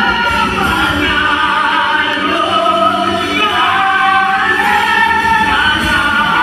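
Music with voices singing together in a choir, held notes sustained over one another.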